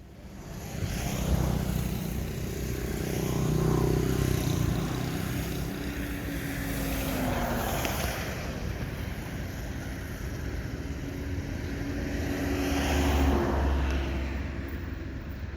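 A motor engine running, swelling louder and easing off twice, with its pitch sliding down about seven seconds in.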